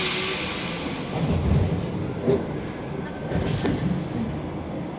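Inside an MF77 Paris Métro car standing at a platform: a loud burst of compressed-air hiss fades away at the start, then low rumbling with a short knock about three and a half seconds in.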